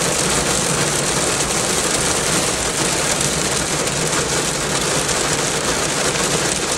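Steady, even rushing noise with no clear pitch, rhythm or breaks.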